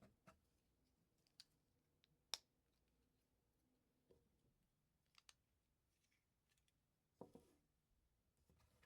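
Faint, scattered clicks of plastic LEGO bricks being handled and pressed together, with a sharper single click about two and a half seconds in and a brief rustle of pieces being handled near the end.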